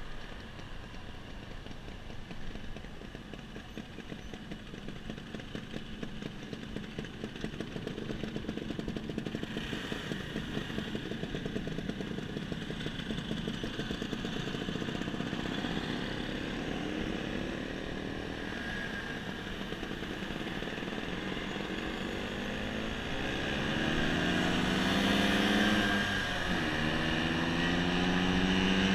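Motor scooter engines on the move over a steady rushing noise. About two-thirds of the way in, an engine speeds up with its pitch rising, dips briefly, then climbs again, loudest near the end.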